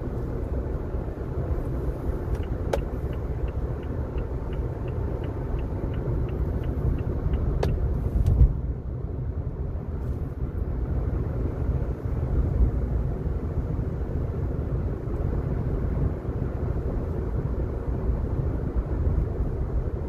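Car interior noise while driving: a steady low rumble of tyres and engine. For about five seconds early on a run of light, evenly spaced ticks, about three a second, sounds over it, and a brief low thump comes about eight seconds in.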